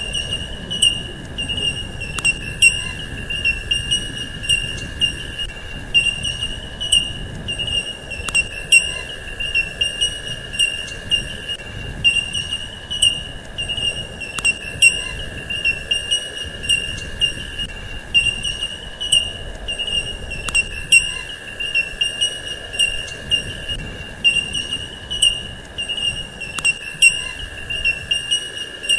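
Steady high-pitched insect trill, like a cricket, with irregular sharp clicks over a low rumble.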